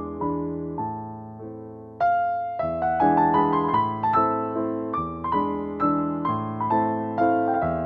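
Background piano music: a gentle melody of single struck notes over low bass notes, getting louder about two seconds in.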